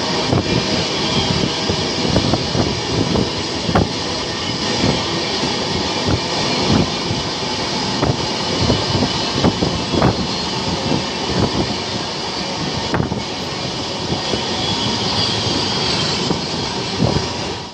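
The passing Bangalore Duronto Express's coaches rumble and clatter along the adjacent track, heard from a moving train, over a steady rush of wind and running noise. Irregular sharp clacks of wheels over rail joints run throughout, a few of them louder than the rest.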